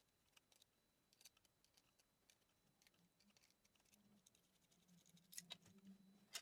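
Faint, scattered small clicks and light taps of a hand tool working at a small connector on a circuit board, with a couple of sharper clicks near the end. A faint low hum comes in about halfway through.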